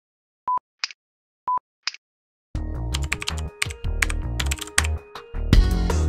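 Two short electronic beeps a second apart, each followed by a brief high hiss. About halfway through, title music starts with a flurry of computer-keyboard key clicks laid over it.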